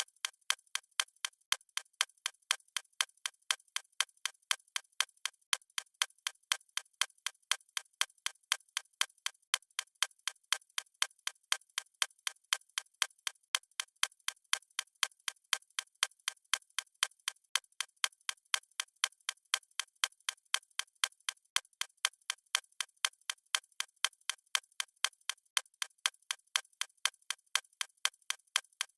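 Mechanical watch ticking, an even run of sharp ticks at several a second.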